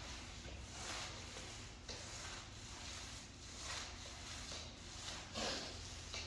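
Repeated rubbing, swishing strokes of an epoxy floor coating being spread across the floor, roughly one stroke a second.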